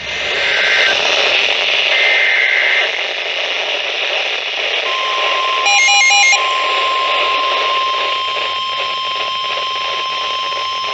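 Weather radio reception with a steady hiss of static. Early on come two short two-tone data bursts of the SAME alert code. About five seconds in, the NOAA Weather Radio 1050 Hz warning alarm tone starts and holds steady, the signal that a warning message follows. A brief cluster of beeping tones cuts in about six seconds in.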